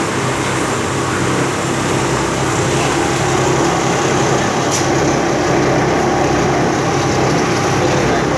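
An engine running steadily at an even speed, with a faint click about halfway through.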